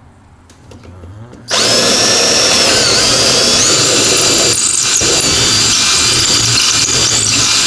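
Power drill starting about a second and a half in and running steadily, with a high motor whine, as it bores a bolt hole all the way through.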